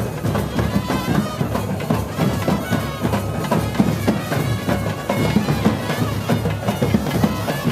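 Live procession band playing: wind instruments carry a melody over steady drum beats.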